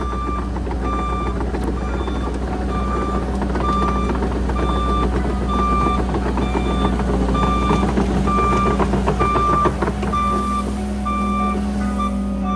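Diesel construction machine running, with its backup alarm beeping at an even pace over the engine and a continuous clatter.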